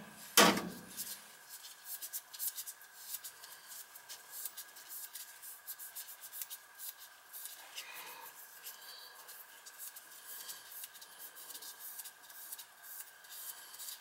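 Gloved hands handling wiring and small metal parts at a gas furnace: a loud knock just after the start, then a run of small clicks, taps and rubbing. A faint steady high whine runs underneath.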